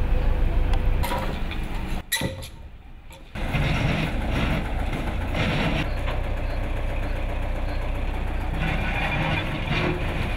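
Tractor-mounted backhoe's engine running steadily, dropping away for about a second around two seconds in before carrying on.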